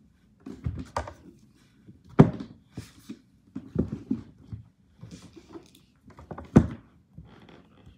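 Irregular thunks, knocks and light clatter of household things being handled and set down, with two louder thunks about two seconds in and about six and a half seconds in.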